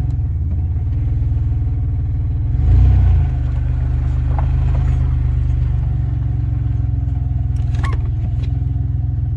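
1990 Dodge Grand Caravan's 3.3-litre V6 idling steadily after a cold start, heard from inside the cab, with a brief louder surge about three seconds in. No lifter tick: the owner takes the earlier noise for a sticky lifter that has freed up with the heat.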